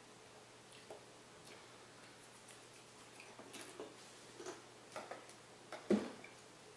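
Faint crunching of a Pringles potato chip being chewed: a scatter of small, crisp clicks that grows denser partway through. Near the end comes one louder knock as a cardboard Pringles can is picked up from the table.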